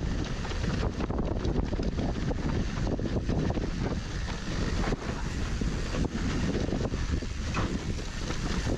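Wind rushing over an action-camera microphone as a mountain bike descends a rough dirt downhill trail, with constant rattling and knocks from the bike over the bumps.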